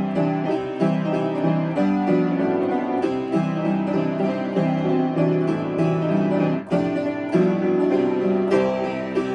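Upright piano played: a lively arrangement with a repeating chord pattern in the left hand under a melody, with a brief break about two-thirds of the way through.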